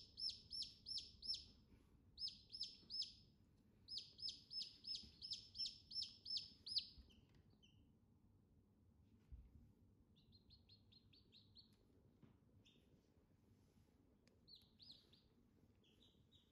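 Domestic chicks peeping: runs of short, high peeps about three a second, loud for the first seven seconds, then after a pause fainter, scattered runs of peeps.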